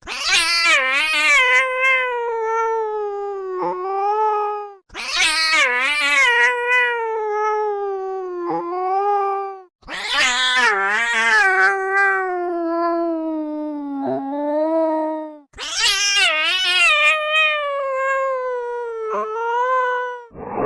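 Angry cat yowling: four long, drawn-out caterwauls, each about five seconds, wavering in pitch, with brief breaks between them.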